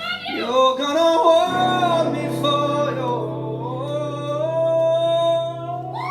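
Live male singing with acoustic guitar: the singer runs through a few bending notes, then holds one long final note over a sustained guitar chord as the song ends.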